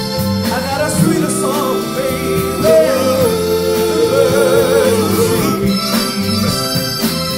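Live Motown soul music: a male vocal group singing with long held notes and vibrato over keyboard, bass guitar and drums. The drum hits drop out while the voices hold their notes and come back near the end.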